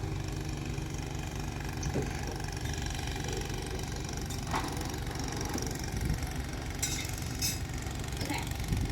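An engine running steadily with a low hum, with a few short clicks and knocks over it.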